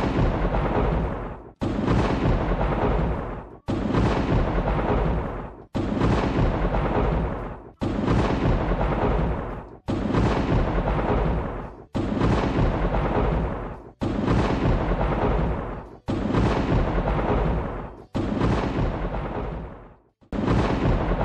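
Thunder sound effect on a loop: a sudden crack with a deep rumble that fades away, repeating about every two seconds.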